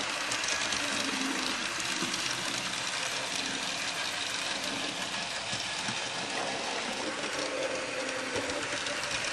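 HO scale model train running on its track: a steady whir from the small electric motor with a light, constant clicking and rattle of the wheels over the rails.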